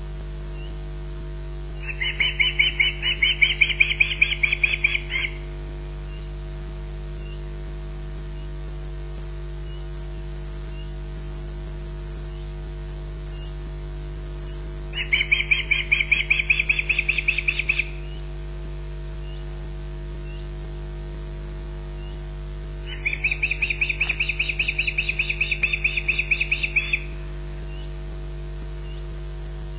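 Osprey warning calls: three bouts of rapid, high-pitched chirps, each lasting three to four seconds, given in alarm at corvids near the nest. A steady electrical hum runs underneath.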